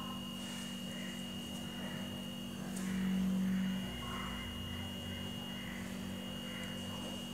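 A steady low hum with a thin high-pitched whine, the hum swelling louder for about a second midway.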